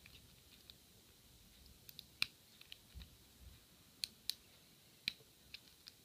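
Faint, sharp clicks of a steel lock pick working the pins inside a Sesamee pin-tumbler padlock under light tension, about ten scattered clicks, the loudest a little past two seconds in. The pins are being set one by one to bring the lock into a false set.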